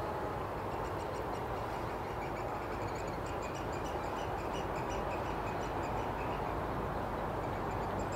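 Flock of Eurasian oystercatchers calling, a quick run of short, high piping notes repeated over and over, over a steady rushing background.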